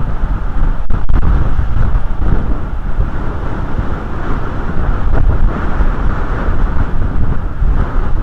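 Wind buffeting an outdoor camera microphone: a loud, steady rumble of noise with no bird calls.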